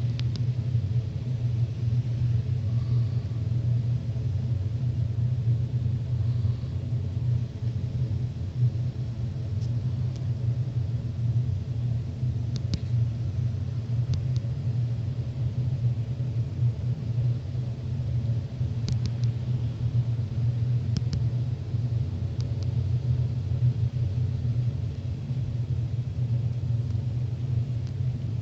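A steady, unbroken low rumbling hum in the night air, of unknown origin, which the recordist takes for one of the mysterious "strange sounds" reported around the world. A few faint ticks show up over it.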